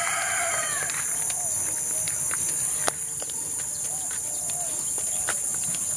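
Steady, high-pitched chorus of insects buzzing continuously in tropical farmland, with a few faint short calls and scattered soft clicks underneath.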